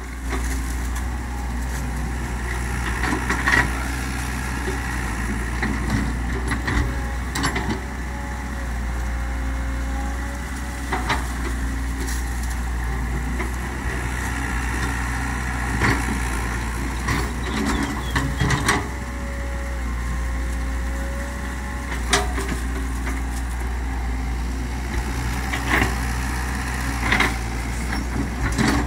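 Komatsu PC130 hydraulic excavator running steadily with a low engine drone and a thin whine that bends in pitch now and then. There are sharp knocks every few seconds.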